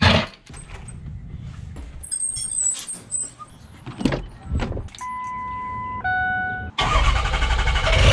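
Keys jingle as they are picked up, then a truck door handle and door clicks. A steady electronic beep follows, then a shorter lower one. Near the end a pickup truck's engine starts and runs loudly.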